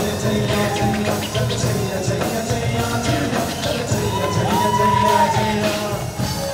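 Live a cappella performance: a male lead singer singing over beatboxing by four vocalists, with a steady beat throughout. About four seconds in, a long held sung note rises and swells to the loudest point.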